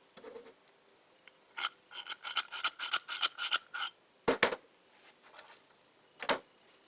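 Packing being rammed down a homemade cannon's barrel with a rod: a quick run of about ten strokes, then two harder single thumps.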